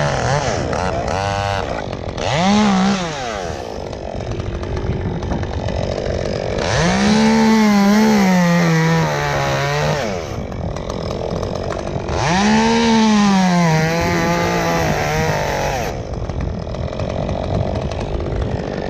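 Chainsaw revved up three times, with a short burst and then two longer runs of about three seconds each, the pitch sagging during each long run and idling between runs. It is cutting into a dead tree.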